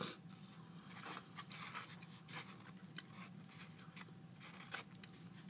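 Chewing and small wet mouth clicks from eating soft baked potato, with a plastic fork clicking and scraping in a foam takeout container. These are scattered short, sharp clicks, fairly faint.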